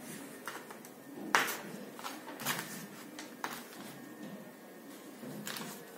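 Paper cutouts being handled and pressed onto a display board: a few short crinkles and soft taps, the sharpest just over a second in.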